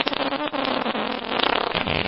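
Long, wet, sputtering fart sound effect: a rapid flutter with a low buzzing pitch.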